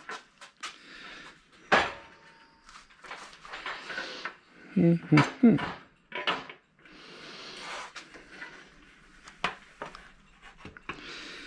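Hand-fitting a part into a table frame: hard parts clink and knock several times, with scraping and rubbing between the knocks as the piece is worked into place.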